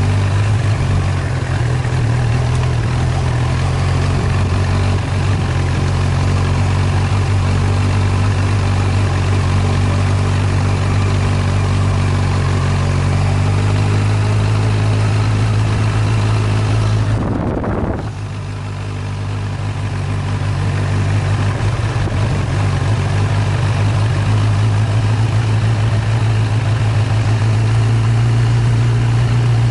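Motor vehicle engine running steadily while driving along a sandy dirt track. A little past halfway the engine eases off briefly, then picks up again.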